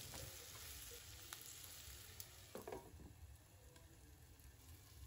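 Faint sizzling of ivy gourd pieces frying with spices in a nonstick pan, with a brief knock about two and a half seconds in.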